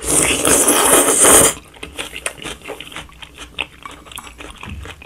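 A loud slurp of stir-fried jjamppong noodles drawn into the mouth, lasting about a second and a half, followed by close-up wet chewing with many small clicks.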